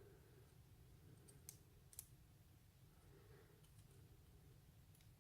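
Near silence with a few faint clicks, two of them about a second and a half and two seconds in: small metal lock parts and tools being handled while a lock cylinder is taken apart.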